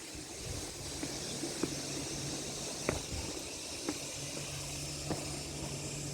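Steady outdoor hiss of beach ambience, with a faint low hum under it and a few light taps about a second apart.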